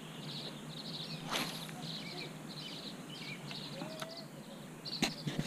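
Birds chirping and calling in the background, many short high chirps with a few lower whistled notes, with a sharp click about a second in and a few clicks near the end.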